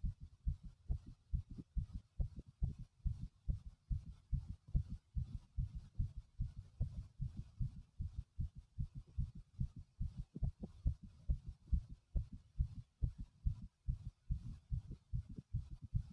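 A man's heartbeat pounding: quick, regular low thumps.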